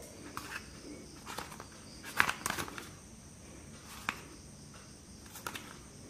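Fingers handling and turning a small cardboard box, giving scattered light taps and scrapes, with the loudest cluster a little over two seconds in.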